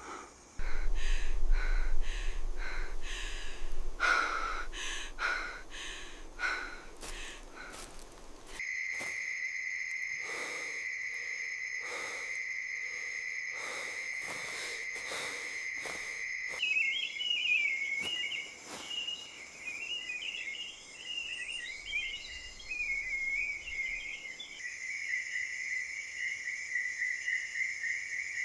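Forest insects chirring in a steady high buzz that changes abruptly a few times, with a warbling trill in the middle and a pulsing chirr near the end. Over the first third, louder than the insects, comes a run of sharp, irregular strikes with a low rumble.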